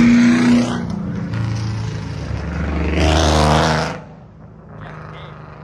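A car driving past on the street, its engine revving under acceleration. It gets louder to a peak about three to four seconds in, then quickly falls away.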